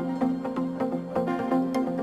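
Background music: a melodic instrumental track with steady pitched notes and light ticking percussion.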